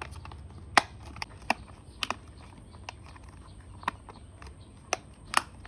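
Two small plastic toy parts, the halves of a miniature fish, being pressed and fitted together: a series of sharp, light clicks and taps at uneven intervals as the pieces knock against each other and seat on their locating points.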